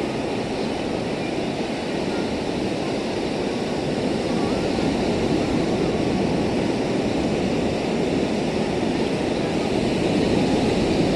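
Steady rushing of wind on the microphone mixed with sea surf washing over the rocky shore, growing slightly louder towards the end.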